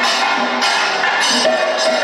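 Kathakali percussion accompaniment: chenda and maddalam drums with ilathalam cymbals keeping a steady beat, about one strike every 0.6 s, over a held tone.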